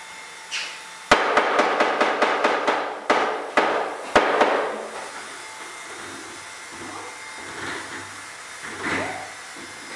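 Hammer blows on wood: a quick run of about seven strikes about a second in, then three more spaced strikes, after which the hammering stops.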